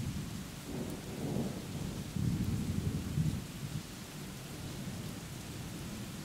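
Steady rain hissing, with low rolls of thunder rumbling about a second in and again from about two to three and a half seconds in, then easing back to the rain alone.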